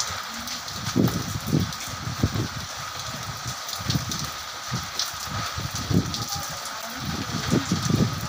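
Rain falling steadily with gusty wind, the wind buffeting the microphone in irregular low rumbles.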